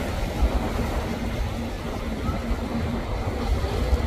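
Motorboat running at speed through choppy water: a steady engine drone over the wash of waves, with a low rumble of wind on the microphone.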